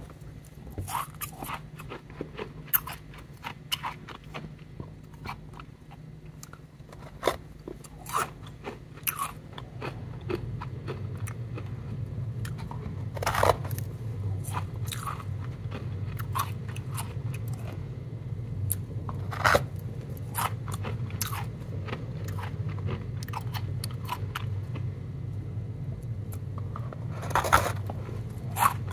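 Powdery ice crunching and crackling as gloved hands squeeze and crumble a block of it, in many small sharp crunches with a few louder ones. A low steady hum comes in under it about a third of the way through.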